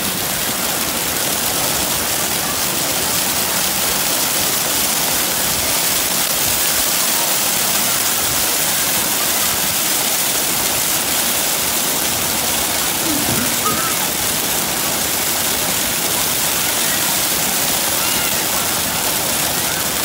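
A steady stream of water pouring from an overhead pipe and splashing onto the shallow, wet floor of a splash pad: a close, constant rushing splash.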